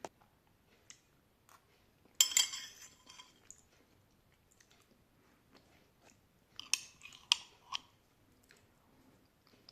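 Close-miked chewing and biting of crunchy food: a loud crunching bite about two seconds in, another run of sharp crunches around seven seconds, and soft wet mouth clicks between.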